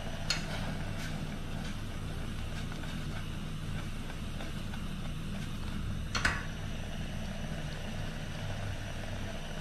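A steel cooking pot is lifted off a portable gas stove and set back down, clinking on the stove's metal pot supports once lightly just after the start and once more sharply about six seconds in, over a steady low hum.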